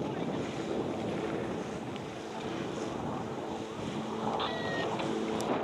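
Wind rushing on the camcorder microphone, with faint, distant pitched calls, likely spectators' voices, through most of it.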